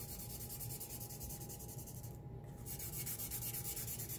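Felt-tip marker scribbling on a paper coffee filter in rapid back-and-forth strokes, with a short pause about halfway through.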